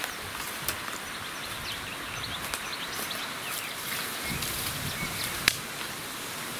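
Steady outdoor hiss with small birds chirping faintly, and one sharp click about five and a half seconds in.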